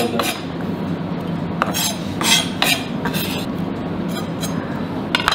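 A steel kitchen knife and spoon clinking and scraping against a ceramic bowl and wooden cutting board as chopped parsley is added to a dipping sauce. Several separate short strikes and scrapes sound over a steady low hum.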